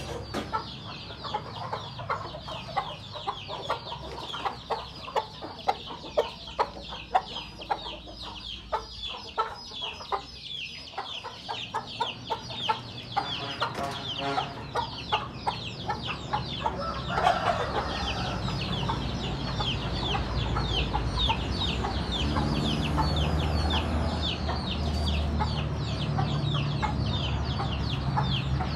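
Chickens clucking, with a continuous stream of quick high chirps and sharp louder calls about twice a second. From a little past halfway a low rumble joins in.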